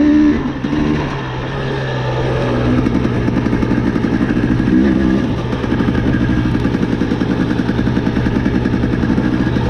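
KTM 350 EXC-F four-stroke dirt bike engine running, revved briefly at the start and again about five seconds in, then pulling at steady revs with an even firing pulse.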